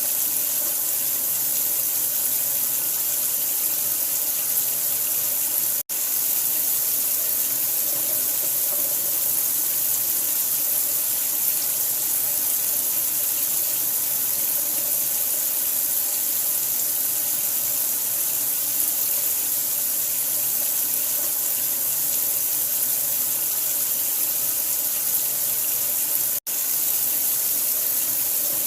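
Steady running water, an even hiss with no change, used as sleep-aid white noise. It cuts out for an instant twice, about six seconds in and near the end.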